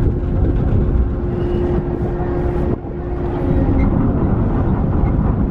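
Steady low rumble of the Taiheiyo Ferry Ishikari's machinery as the ship manoeuvres away from the quay, with a steady hum that cuts off about three seconds in.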